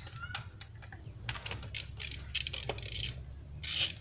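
Ratchet and long socket extension working the spark plugs loose in a 4.6-litre engine: scattered light metal clicks and rattles, with a quicker run of clicks near the end.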